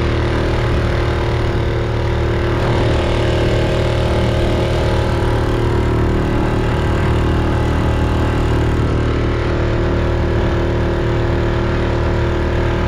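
Outboard motor running loud and steady at a constant speed, with an even hum and no change in pitch.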